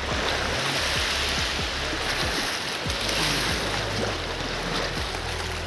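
Steady rushing of sea surf at the shore, with the low sustained notes of background music underneath that change twice.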